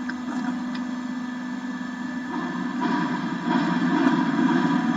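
Hydraulic hose crimping machine's motor and pump running with a steady hum, growing louder and rougher about two and a half seconds in.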